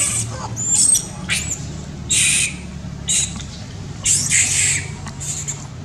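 Macaque monkeys giving a string of short, high-pitched squeals and screeches, about six in a row, over a low steady hum.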